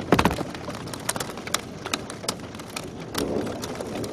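Hail falling with rain: hailstones strike hard surfaces as many irregular sharp clicks over a steady hiss of rain.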